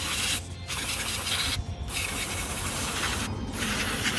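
Aerosol can of CRC QD electronic cleaner spraying onto a PC power supply's circuit board. It hisses in bursts of about a second, broken by three short pauses.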